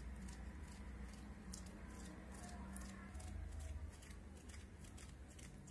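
A small blade scraping gel out of a cut aloe vera leaf: a run of faint, irregular scraping strokes over a low steady hum.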